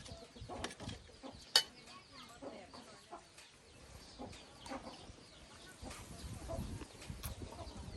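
Chickens clucking in short scattered calls, with one sharp click about one and a half seconds in. Wind rumbles on the microphone in the last couple of seconds.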